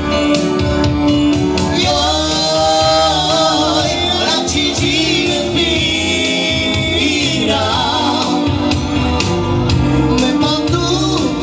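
Live amplified band music: a man singing into a microphone over an electronic keyboard accompaniment with a steady beat, played through PA speakers.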